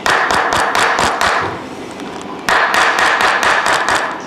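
A rapid run of sharp clicks over a loud hiss, in two bursts, the second starting abruptly about two and a half seconds in.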